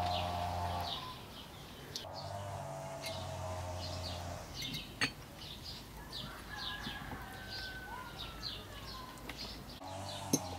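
Outdoor village ambience: a bird chirping over and over, two or three short calls a second, with a cow lowing in the background twice. A couple of sharp clinks of cutlery sound partway through.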